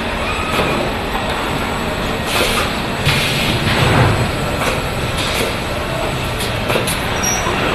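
Car assembly line factory noise: a steady machinery din from the overhead body conveyors and line equipment, with scattered metallic clanks and knocks. It swells to a louder rumble and clatter about three to four seconds in.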